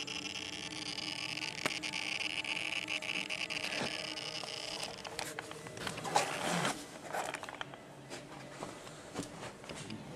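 Traxxas Slash 4x4 Ultimate RC truck giving off a steady buzz, which the owner suspects comes from the servo. The buzz stops about halfway through, followed by scattered clicks and scraping sounds.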